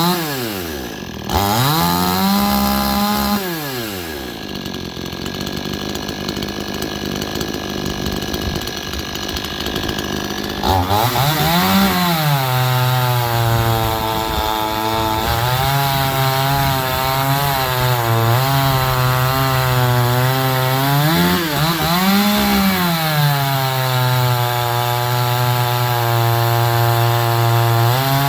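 Brand-new Proyama PCS50 chainsaw (a 49.3cc two-stroke Red Max G5000 clone) running hard. It revs up and down in the first few seconds, then rises sharply again about ten seconds in. After that its pitch drops and wavers as it is held in a cut through wood, with two brief rises in between.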